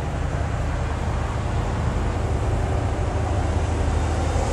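Steady low rumble of idling diesel semi-truck engines, with an even noise on top.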